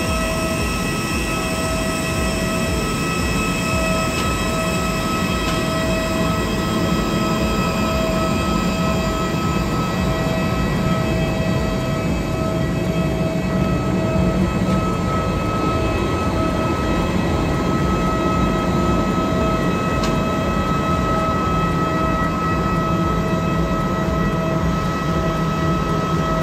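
Jet airliner turbine running at the stand: a steady high whine over a constant rumble, with fainter higher tones slowly falling in pitch.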